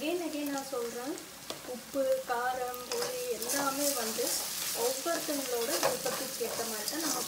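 A spatula stirring and scraping onions, chillies and chicken around a metal wok, with the oil sizzling underneath. The scraping comes in repeated uneven strokes that sometimes give a short wavering squeak.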